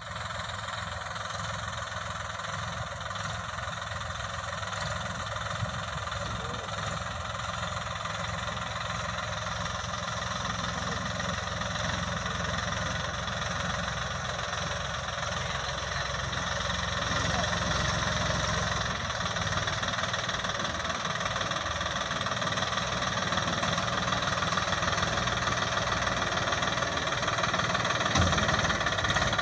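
New Holland 3230 tractor diesel engine running steadily under load as it tows a trailer piled high with paddy straw, growing louder as the tractor draws closer.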